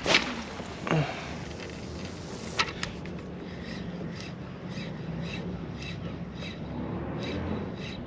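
A spinning rod cast: a sharp click, a brief swish of the line going out, another click, then the reel cranked in a steady retrieve, ticking about three times a second.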